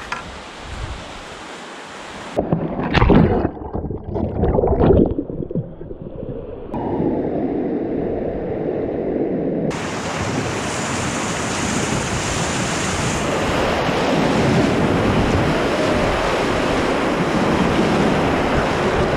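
Whitewater rapids rushing steadily around a kayak, close to the microphone, after a few loud, uneven bursts of noise in the first few seconds.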